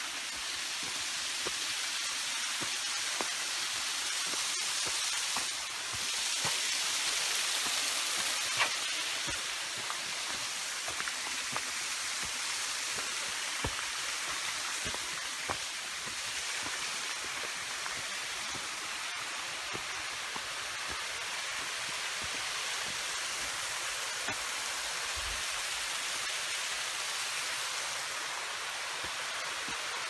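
Steady rush of water from a creek and waterfalls, a constant hiss that swells slightly for a few seconds about six seconds in. Scattered sharp clicks sit over it.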